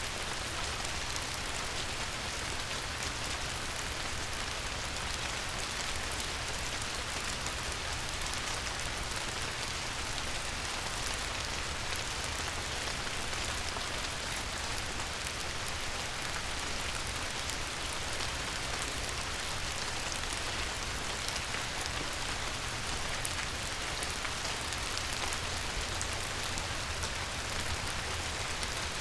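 Light rain falling steadily, a dense, even patter of small drops, with a low steady rumble underneath.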